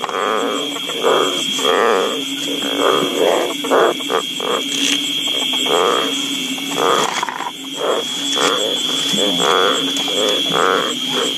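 Frogs croaking over and over, roughly one to two short calls a second, over a steady high-pitched whine.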